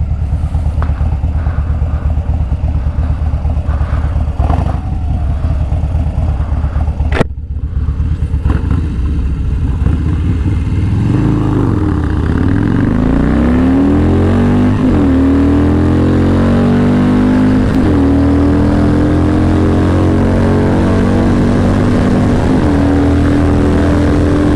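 Harley-Davidson Dyna Fat Bob's V-twin running and blipped at the start line, then launched at full throttle down the drag strip. Its exhaust note climbs in pitch through the gears, with three quick drops in pitch at the upshifts, and wind rushes over the microphone at speed. The rider thinks it hit the rev limiter in second and third.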